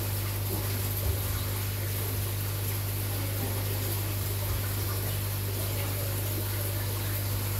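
Aquarium pump humming steadily under a constant hiss of bubbling, aerated tank water, with a few faint knocks.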